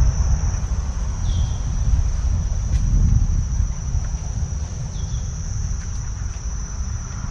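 Steady, high-pitched insect drone of crickets or cicadas, under a loud low rumble. Two short falling chirps stand out, one about a second in and another about five seconds in.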